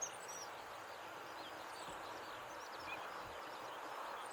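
Steady outdoor background hush of a river, with faint, scattered high bird chirps throughout.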